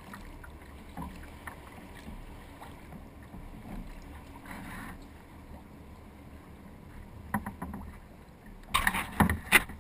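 Water lapping quietly against a kayak's hull with faint drips as it glides. About nine seconds in, a run of loud splashing knocks begins.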